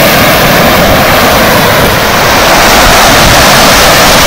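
Swollen floodwater of a river in spate rushing and churning fast along an earth bank, a loud, steady rush of water.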